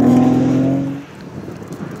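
A car engine running hard off-screen, its note rising slightly, then dropping away abruptly about a second in to a fainter, rough rumble.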